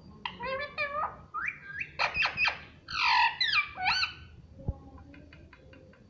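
Indian ringneck parakeet chattering and squawking in a run of short, gliding calls, loudest about three seconds in. A single thump follows, then a row of faint, quick clicks.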